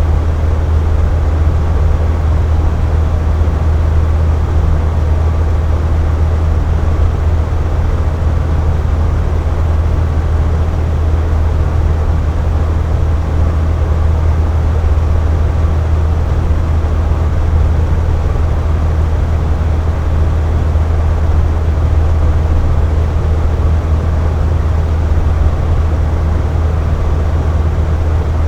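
Air conditioner running steadily: a deep, constant hum under an even hiss, with no change.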